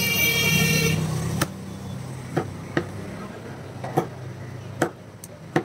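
A butcher's knife chopping country chicken into pieces on a wooden block: about six sharp, irregular chops. A passing motor vehicle is loudest in the first second or so.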